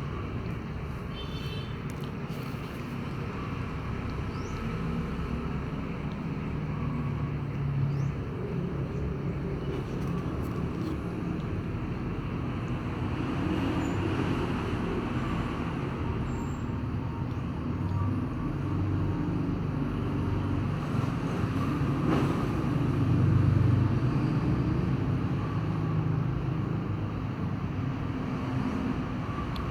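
Steady low rumbling background noise that swells and fades slowly, loudest a little over twenty seconds in.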